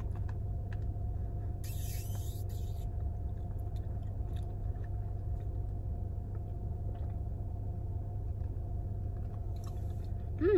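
Faint chewing and mouth sounds of someone eating chewy boba tapioca pearls, with scattered small clicks over a steady low hum. A brief hissing noise comes about two seconds in.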